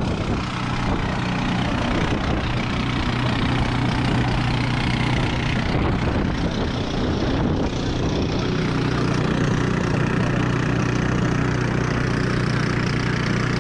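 Small engine of a street-cart sugar cane press running steadily with an even hum while stalks of cane are fed through its rollers.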